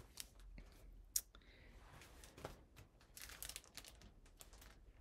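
Faint, scattered clicks and light rustling of a paper card and a pattern sleeve being handled and set aside, with a sharper click about a second in and a small cluster of clicks about three and a half seconds in.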